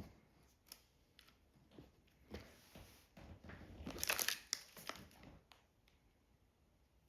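Hand-work noises while wiring a speaker: scattered small clicks and handling sounds, with a longer crinkling, tearing rustle about four seconds in.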